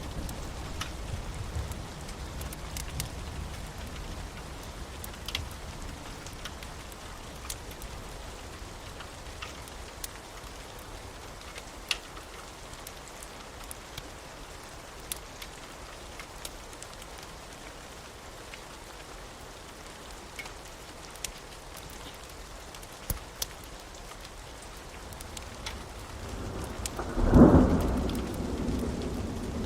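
Thunderstorm ambience: steady rain with scattered sharp ticks of drops. A low thunder rumble fades out in the first seconds, and a loud thunderclap builds about 26 seconds in, cracking and rumbling near the end.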